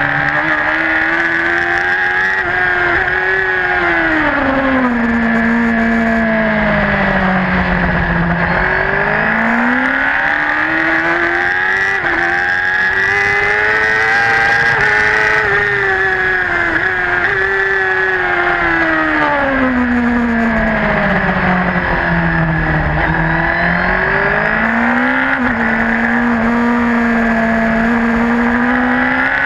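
Superbike engine heard onboard at racing speed: the revs drop in steps twice as it downshifts and climb again each time as it accelerates, with a sharp change in pitch near the end as it shifts gear.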